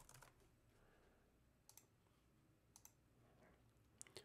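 Near silence with a few faint computer keyboard and mouse clicks: a short cluster near the start, then single clicks about a second apart.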